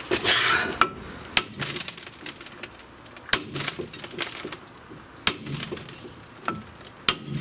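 Hammer striking a rusted front brake disc on a Daewoo Lanos several times, a second or two apart, the metal disc ringing briefly after some blows. The blows are freeing a disc stuck to a hub that was never greased.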